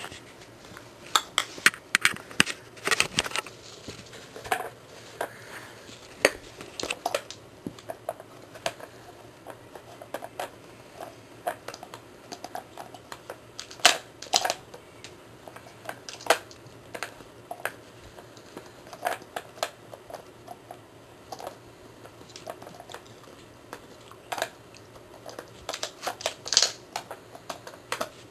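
Red plastic Paw Hide dog puzzle toy clattering and clicking irregularly as a puppy noses and paws at its sliding covers, pushing the toy around to get at hidden treats. There are flurries of quick knocks a second or two in, around the middle and near the end.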